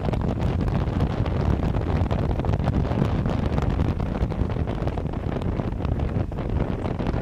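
Wind buffeting the microphone of a moving car, a steady low rumble with road noise underneath.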